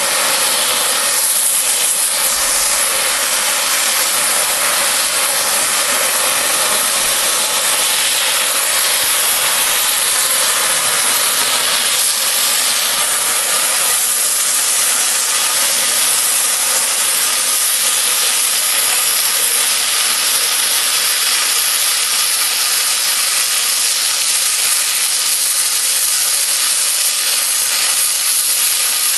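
Oxy-fuel cutting torch hissing steadily as it flame-cuts through steel railroad rail.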